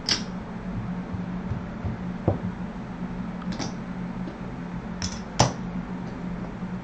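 Casino chips clicking against each other a handful of times as bets are stacked on a craps layout, over a steady low hum.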